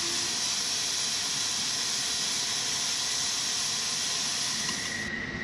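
Steady high-pitched jet turbine whine over a loud hiss, with a thin steady tone running through it, cutting off abruptly about five seconds in.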